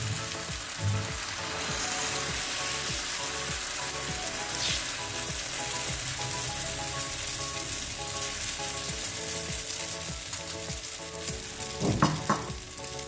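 Oats-and-egg omelette batter sizzling steadily as it fries in hot olive oil in a nonstick pan.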